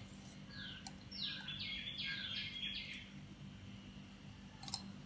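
A bird chirping: a quick run of short, falling chirps, about three a second, which stops about three seconds in, over a steady low hum, with a couple of faint clicks.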